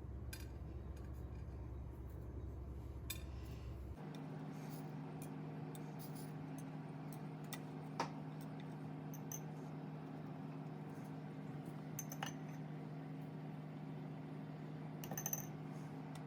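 A few light clinks and taps of kitchenware over a steady background hum; the hum changes abruptly about four seconds in.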